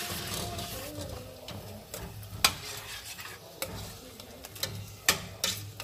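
Cut-up chicken being stirred into a pot of simmering cream sauce, the sauce sizzling steadily, with a few sharp knocks of the utensil against the pot, the loudest about two and a half seconds in.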